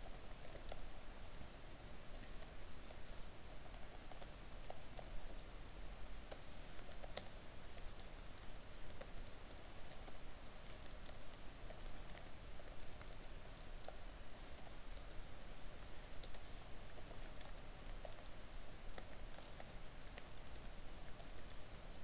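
Typing on a computer keyboard: quiet key clicks at an irregular pace.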